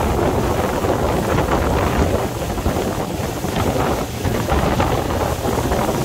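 Steady wind buffeting the microphone on a small open motorboat under way, over the outboard motor running at speed and water rushing past the hull.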